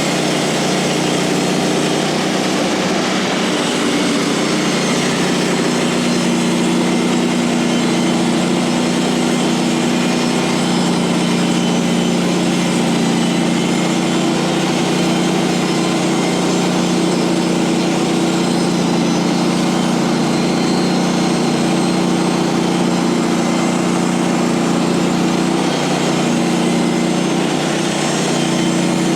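Small gasoline engine of a portable bandsaw mill running steadily at one even pitch as the blade saws a slab off a pine log.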